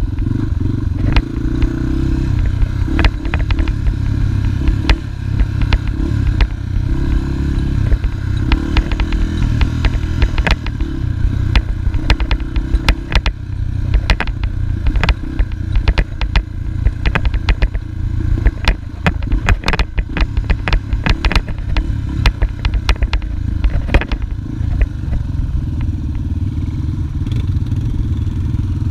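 Dirt bike engine running under way off-road, with frequent sharp knocks and rattles as the bike jolts over rough grass; it settles to a steadier run with fewer knocks near the end.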